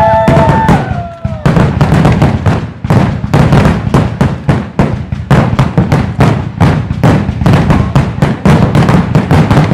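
Fireworks display in a rapid barrage: shell bursts and crackling packed many bangs a second without a break. A few whistles bend in pitch during the first second.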